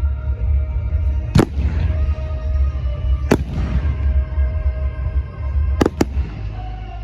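Fireworks shells bursting overhead: four sharp bangs, the last two in quick succession, over music playing through loudspeakers for the show.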